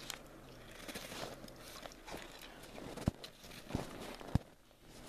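Crunching of snow and ice underfoot as an ice-fishing tip-up is handled at the hole, with three sharp knocks about three, three and a half and four and a half seconds in.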